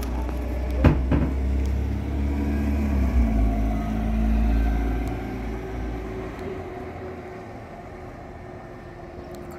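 City bus engine running as the bus drives past and away, its low rumble fading after about five seconds. There are two sharp knocks about a second in.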